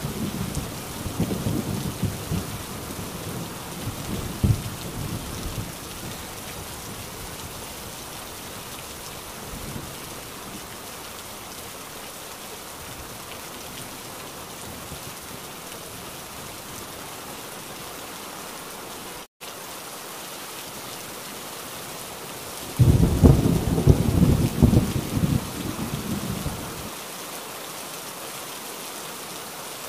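Heavy rain falling steadily, with thunder. A rumble dies away over the first few seconds, then a sudden loud thunderclap about 23 seconds in rolls on for several seconds. The sound cuts out for an instant about 19 seconds in.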